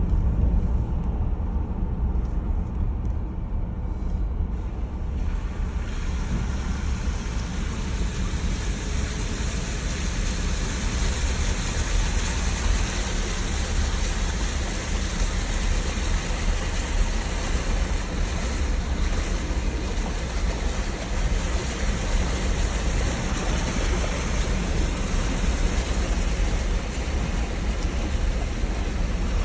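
A vehicle running with a steady low rumble. A rushing hiss joins in and grows louder about five seconds in, then holds steady.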